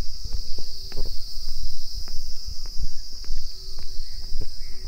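Footsteps on railway ballast gravel, as irregular crunches and thumps, over a steady high chirring of crickets.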